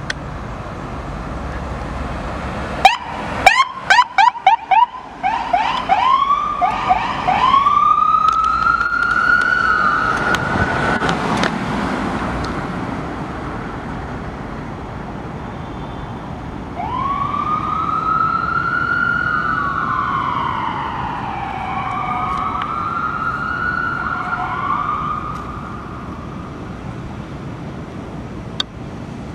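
Ambulance siren on an emergency run. It opens with a rapid string of short, loud blasts about three seconds in, then gives repeated quick rising sweeps, and later a slow wail that rises and falls and fades as the ambulance pulls away.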